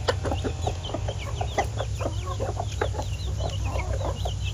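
Young broiler chickens peeping rapidly and continuously, many short downward-sliding cheeps, with scattered short clicks and a low steady hum underneath.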